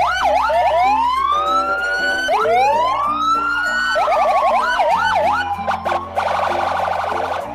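Toy police car's electronic siren, switching between fast yelping sweeps and slow rising-and-falling wails, with a harsh buzzing tone near the end.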